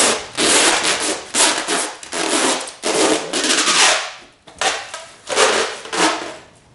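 Clear plastic shrink-wrap film crinkling and rustling as it is folded over a cardboard firework box and pressed flat by hand, in a series of short swells of crackly noise.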